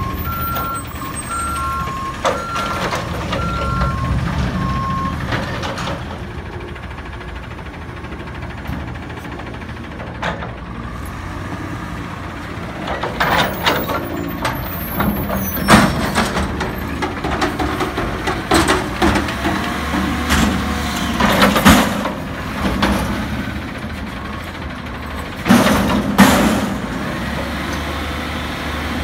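Front-loader garbage truck with a two-tone backup alarm that alternates between two pitches for the first few seconds while the diesel engine runs. Its hydraulic forks then pick up and lift a steel dumpster, with a series of loud metal bangs and clanks in the second half.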